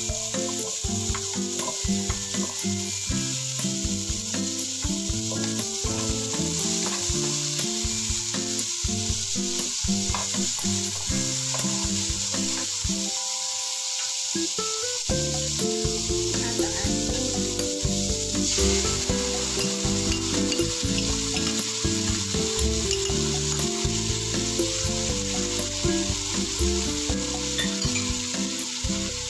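Food sizzling in hot oil in a pan while being stir-fried. The sizzle grows brighter about two-thirds of the way through. Background music plays underneath.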